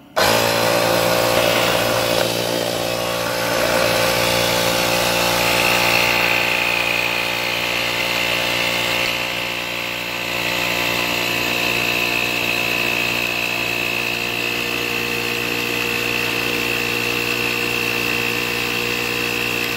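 HyperTough portable tire inflator switched on and running steadily while pumping up a car tire, loud, with a steady pitched hum. A high whine joins in about five seconds in.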